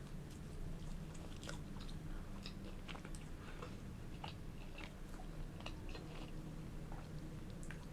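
Close-miked chewing and biting of crusty baked bread, with many small irregular crunches and mouth clicks over a low steady hum.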